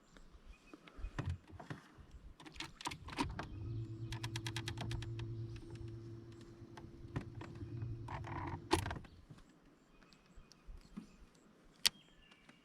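Small mechanical clicks and rattles, with a quick even run of ticks, then a steady low motor hum for about five seconds. A single sharp click comes near the end.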